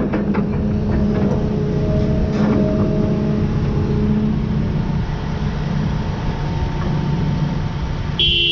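A John Deere 210G excavator's diesel engine and hydraulics run with a steady rumble and a faint whine as the empty bucket swings away from the dump truck. Near the end, a horn sounds suddenly.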